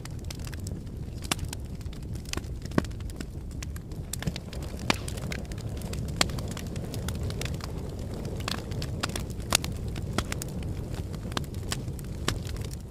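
Wood logs burning in an open fireplace, crackling with sharp pops at irregular intervals over a steady low rumble.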